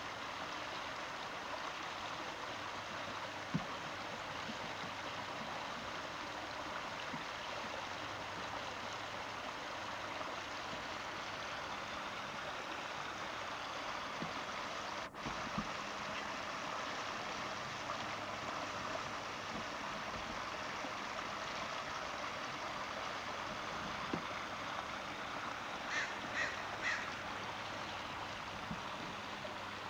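Steady rush of flowing water, with a bird calling three times in quick succession near the end.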